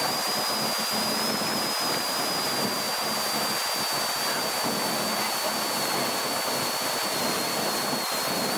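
Steady rush of wind and water spray from a motorboat running at speed, an even hiss with a faint high whine held under it.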